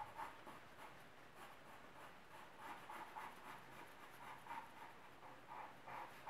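Charcoal pencil scratching on drawing paper in quick, short strokes, faint, coming closer together in the second half.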